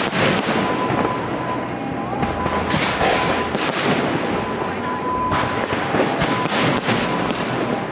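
Fireworks display: shells bursting in repeated loud bangs, several in quick succession near the end, over a continuous rumble and crackle.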